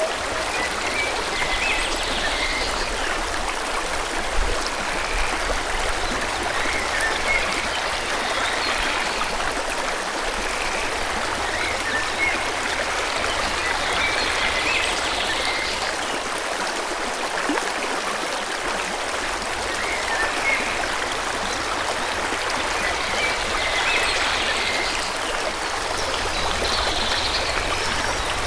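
Forest stream flowing in a steady rush of water, with small birds chirping now and then in short clusters of high notes.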